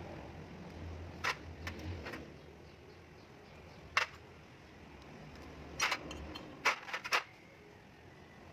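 Scattered sharp clicks and knocks, like tools and small metal parts being handled during work on a starter motor, over a low steady hum. The strongest knock comes about four seconds in, and a quick cluster follows near the end.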